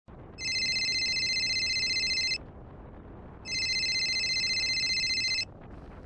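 Telephone ringing: two rings, each about two seconds long with a fast warble, about a second apart.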